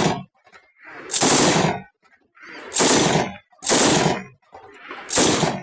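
AK-47 assault rifle firing short bursts of automatic fire, each under a second long, with brief pauses between: four bursts after the tail of one at the very start.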